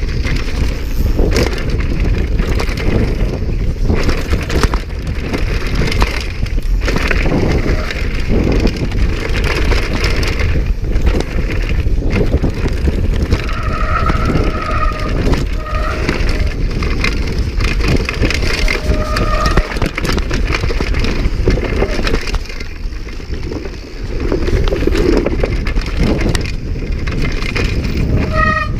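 Downhill mountain bike running fast over a rough, bumpy dirt trail: steady wind on the microphone with tyre roar and a constant rattle and clatter of the bike over the bumps. A few short, high squeals of the disc brakes come about halfway through.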